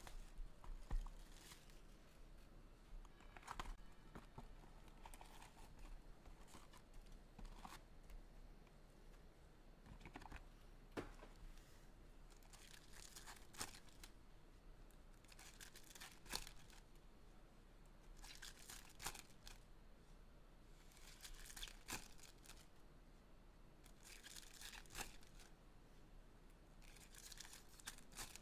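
Sealed trading-card packaging being torn open and crinkled: faint short rips of wrapper, repeating every few seconds.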